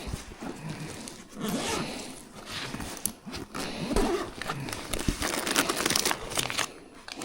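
Plastic bags and packaging crinkling and rustling as they are handled, with scattered small knocks and clicks.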